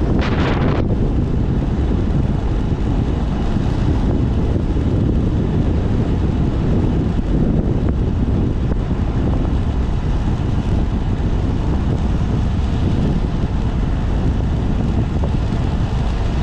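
Wind rushing over the microphone during a motorcycle ride, with a Honda Z125 Monkey's small single-cylinder engine running underneath.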